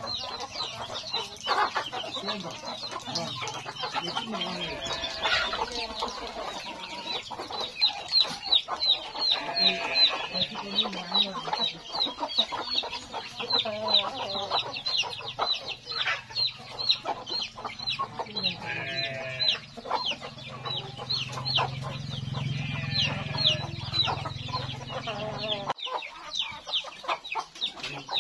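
Free-range village chickens clucking as they forage, over a steady run of short, high, falling peeps, several a second, typical of a chick calling.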